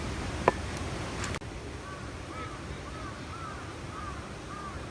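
Short rising-and-falling animal calls repeated evenly, about two a second, over a low steady background noise. They begin after a sudden cut about a second and a half in.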